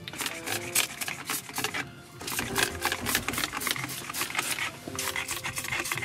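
Trigger spray bottle pumped rapidly, about six hissing squirts a second with a short pause about two seconds in, misting a marine diesel engine.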